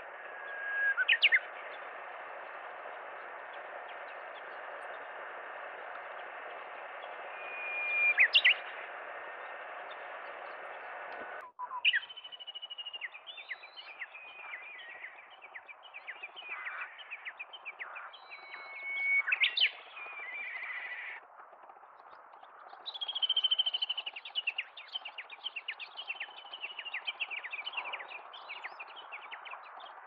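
Japanese bush warbler (uguisu) singing its "hō-hokekyo" song twice, about a second in and again around eight seconds: each a held whistle ending in a quick rising flourish, over a steady hiss. After a break near the middle come more clear whistles and a long run of quick chirps.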